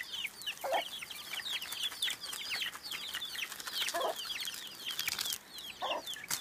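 Chicks peeping constantly, a rapid run of short high chirps falling in pitch, with a hen giving three low clucks among them, about a second in, around four seconds and near the end.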